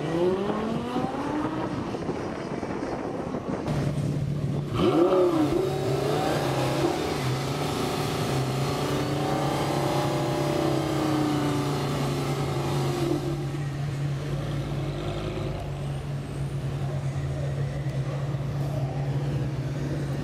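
Supercar engines accelerating and revving, over a steady low idling note. An engine note climbs near the start and again sharply about five seconds in, then a long note rises and falls.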